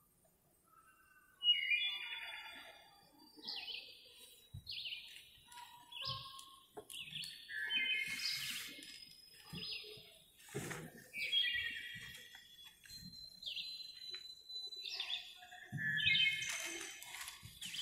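Bird chirping: short repeated calls about once a second, starting about a second and a half in, with a few soft knocks between them.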